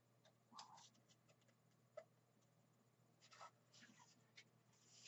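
Faint scraping and rustling of a rolled paper poster being slid out of a cardboard tube, in short scattered scrapes that come more often near the end.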